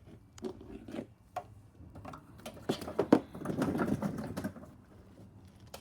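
Handling noise: scattered clicks and knocks with rustling as objects are moved around, busiest in the middle.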